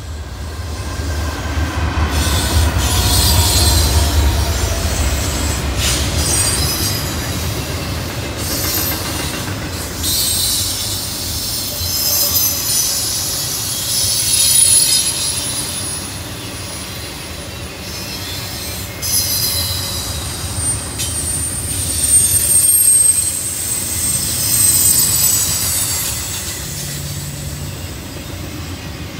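A train rolling past, its steel wheels squealing in high, wavering tones against the rails, with a heavy low rumble in the first few seconds and wheels clacking over rail joints.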